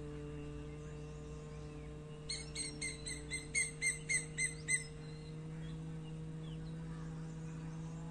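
A person humming a steady, low, unbroken 'mmm' in bhramari (bee) breathing. About two seconds in, a bird calls over the hum in a quick run of about ten short notes, some four a second.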